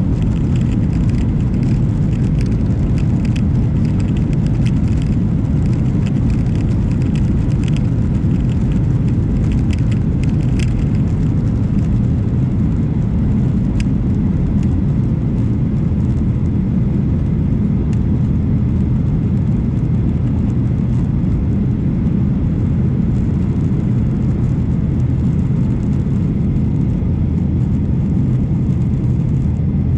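Boeing 737 jet engines and airframe making a loud, steady low rumble, with scattered light clicks and rattles during the first ten seconds or so.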